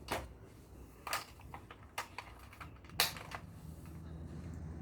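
Toy gun being handled and fired: a run of irregular sharp clicks and snaps, the loudest about three seconds in.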